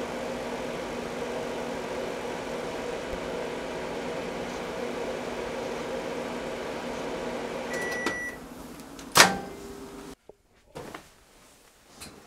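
GE over-the-range microwave oven running with a steady hum. About eight seconds in it gives one beep as the cycle ends and the hum stops. About a second later there is a single loud, sharp clack.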